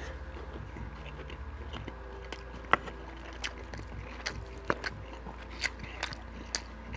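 Close-up chewing of a big mouthful of beef chunks and rice in gravy, with wet mouth clicks and smacks at irregular moments, most of them in the second half.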